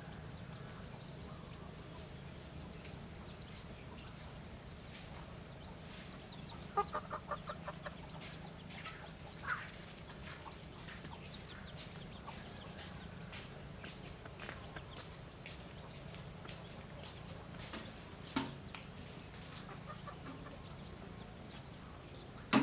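Chicken clucking: a quick run of about six clucks around seven seconds in, then a few single calls, over a steady low hum.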